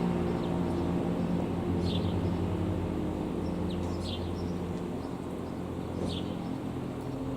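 A low, steady hum that slowly fades, with a bird's short chirp about every two seconds.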